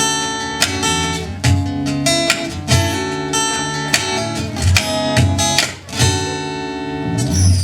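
Instrumental break of a pop-rock song: strummed acoustic guitar chords with a steady beat and no singing.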